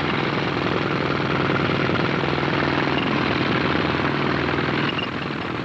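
Pneumatic breaker (jackhammer) hammering steadily in rapid strokes, chipping off the slurry-contaminated top layer of concrete from a cast diaphragm-wall pile. It eases off a little near the end.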